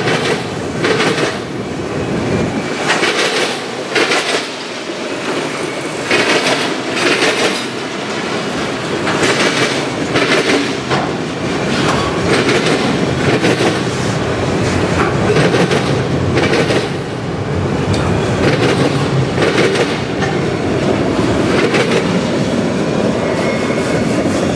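Freight train of autorack cars rolling past close by: a steady rumble with the wheels clacking over the track in clusters every second or two.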